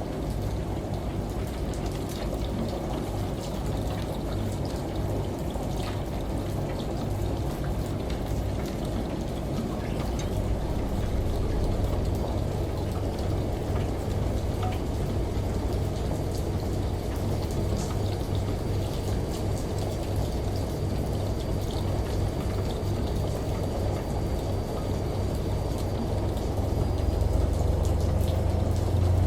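Steady pouring, splashing water over a low steady hum; the hum grows louder near the end.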